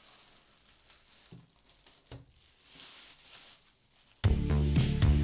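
Plastic wrapping and a foam sheet rustling and crinkling softly as a flat-screen TV is lifted out of its box. About four seconds in, much louder background music with a steady beat starts abruptly.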